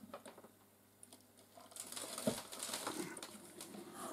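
Old wooden box lid being lifted open at its hinges: rustling and scraping with a few light knocks, starting about two seconds in. The hinge screws have pulled out of the wood.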